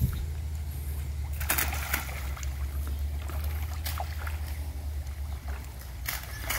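Splashing in a catfish pond as chicken intestines are thrown in and the catfish strike at them on the surface: a few sharp splashes over a steady low rumble.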